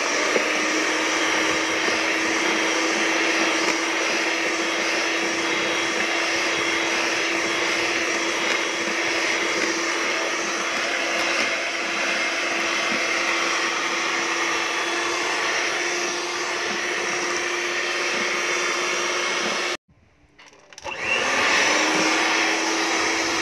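Electric hand mixer running steadily, its beaters whisking a cream cheese and milk cheesecake filling in a plastic tub. About 20 seconds in it switches off for about a second, then starts again and speeds back up.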